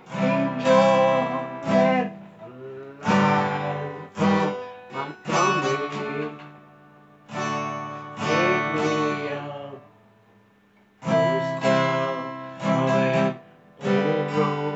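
Acoustic guitar strummed in chords, each stroke ringing out, in phrases with a short break a little past the middle.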